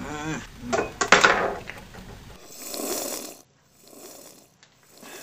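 A man's wordless vocal noises: a wavering, warbling sound at the start, loud breathy sounds about a second in, then a hiss-like exhale about three seconds in.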